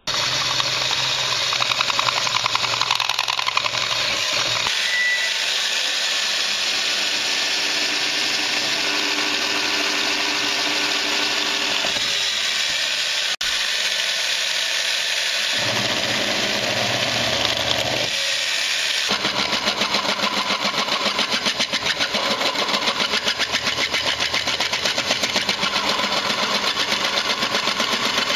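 Drill press running, its twist bit cutting into a small metal bracket held in a vise. The sound changes abruptly several times and takes on a fast, even pulsing in the last third.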